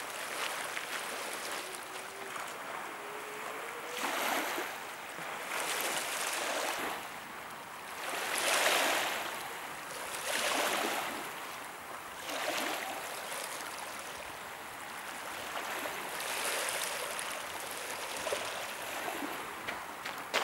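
Small waves washing in over a pebble shore: a hissing swell every two seconds or so, the loudest about eight seconds in.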